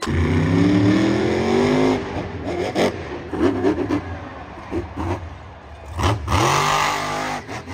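Car engine revving and accelerating. It rises in pitch over the first two seconds, drops and rises again near the end, over a steady hiss.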